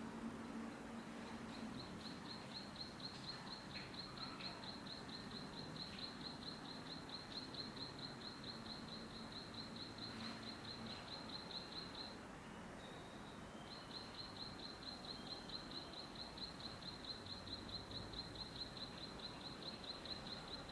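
A high, fast, evenly pulsed chirping trill from a small animal, held for about ten seconds, breaking off briefly and starting again, over a steady background hiss of outdoor ambience.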